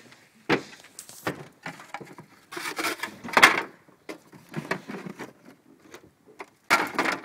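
Sliding tray inside a crossover truck toolbox being pushed back and forth, giving a series of scrapes and knocks as the tray and its packed contents shift. The loudest clunk comes a little past halfway.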